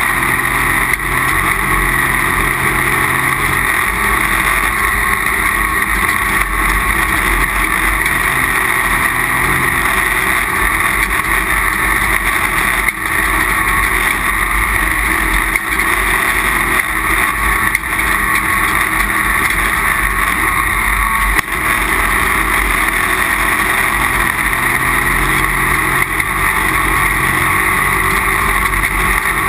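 Off-road race vehicle running hard at speed, heard on board as a steady loud drone of engine and wind noise. Two brief knocks break it, about 13 seconds in and again about 21 seconds in.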